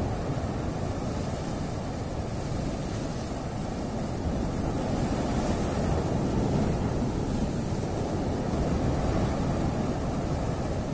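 Sea surf washing and breaking against a rocky shore: a steady rushing that swells and eases, louder a few seconds in and again near the end.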